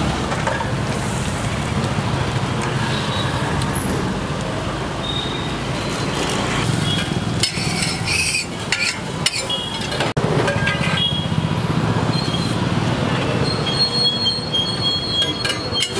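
Metal spatula scraping and clinking on a flat steel dosa griddle, repeatedly from about halfway through, over a steady background of street noise.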